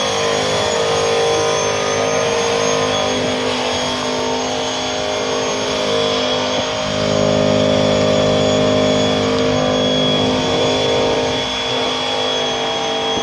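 Turbocharged Ford 3-valve V8 held at high revs in a burnout, the rear tyres spinning and smoking, with a steady high whine over the engine note. It gets a little louder about seven seconds in.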